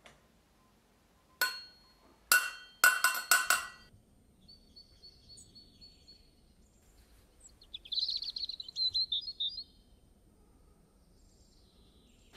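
Metal measuring cup clinking against a glass mixing bowl as flour is tapped out, a quick run of sharp ringing clinks starting about a second and a half in. Then a songbird sings a short high trill.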